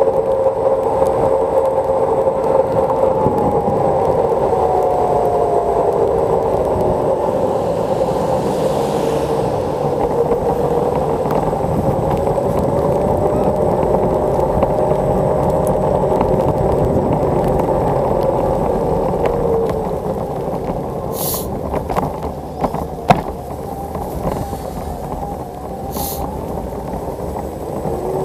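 Xiaomi M365 electric scooter riding on wet pavement: muffled rolling and wind noise, with a faint motor whine that slides in pitch as the speed changes. It gets quieter as the scooter slows in the last third, with a few sharp knocks from bumps.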